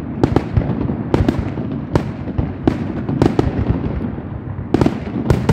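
Fireworks display: a dozen or so sharp bangs from bursting aerial shells at irregular spacing, a few a second, over a continuous low rumble.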